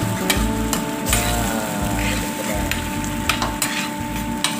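Sweet soy and oyster sauce thinned with water simmering in a metal frying pan, stirred with a metal spoon that clicks against the pan several times. A steady hum runs beneath.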